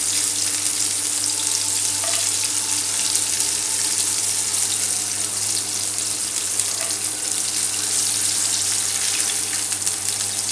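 Battered chicken strips frying in hot oil, a steady, unbroken sizzle.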